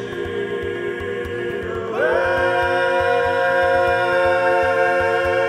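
Background music: choral voices holding sustained chords over a steady low drum beat, with a note that slides up into a louder held chord about two seconds in.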